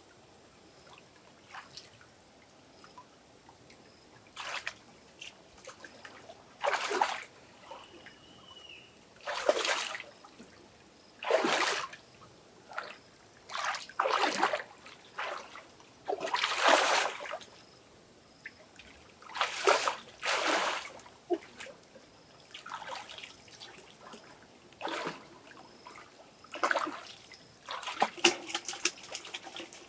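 Water splashing in irregular bursts, about a dozen short splashes with quiet gaps between and a quick run of them near the end.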